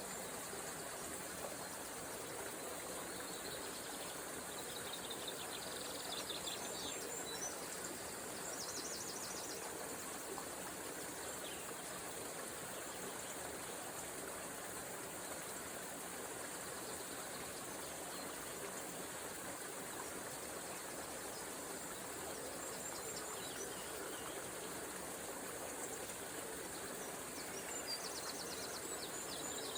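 Small river flowing with a steady rush of water, with birds singing short high trills over it a few times, briefly at a time.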